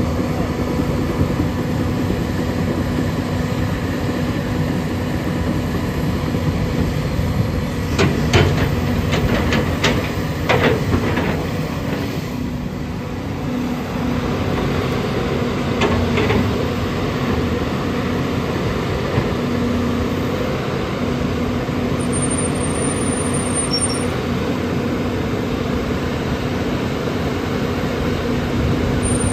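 Volvo EC210BLC excavator's diesel engine running steadily under load while the boom, arm and bucket are worked. A cluster of sharp knocks comes about a third of the way in, and two more a little past halfway.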